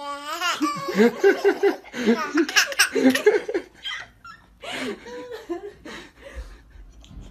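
Baby laughing in rapid bursts of giggles, loudest in the first three or four seconds, then trailing off into softer, scattered vocal sounds.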